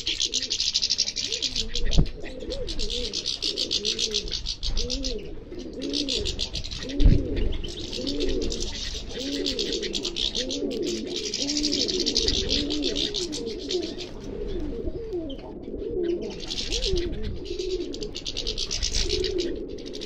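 Birds calling together: pigeons cooing over and over, low and rolling, under bursts of fast, high twittering song from small finches that come a second or two at a time with short breaks. A couple of low thumps stand out, about two seconds and about seven seconds in.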